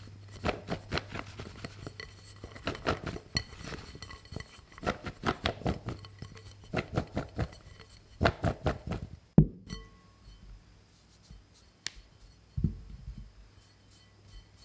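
Starch-coated potato sticks knocking and clinking against the sides of a glass mixing bowl as the bowl is shaken to coat them in cornstarch. The clinking comes in about five bursts of rapid clicks and ends with one sharp knock about nine seconds in. After that only a few soft taps follow.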